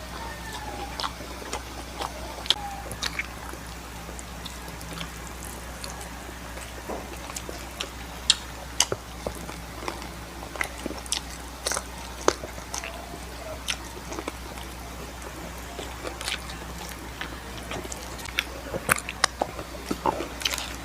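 Close-miked eating: biting into and chewing crispy fried chicken, with irregular sharp crunchy clicks and smacks. A low steady hum runs underneath.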